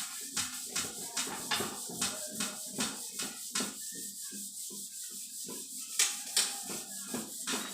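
Rhythmic rubbing strokes of a part worked by hand, about two to three strokes a second, with two louder strokes close together about six seconds in.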